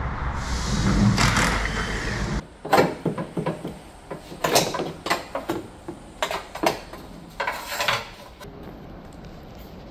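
A steady rushing noise with a low rumble cuts off about two and a half seconds in. Then comes a run of sharp clicks and knocks for about five seconds, from hand work in a workshop, and after that only low room tone.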